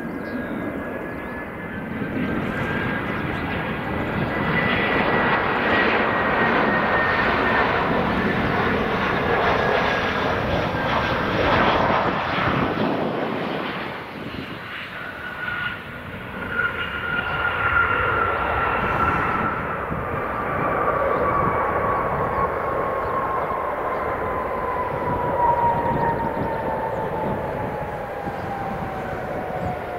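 Airbus A320-214 jet airliner with CFM56 turbofan engines landing: engine rush and whine swell as it passes low on approach, dip briefly at touchdown, then swell again on the rollout. The engine whine falls steadily in pitch through the second half.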